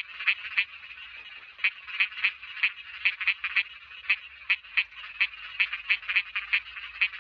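Small frogs (khiat) calling: short, sharp notes repeated about three times a second, with a brief pause about a second in.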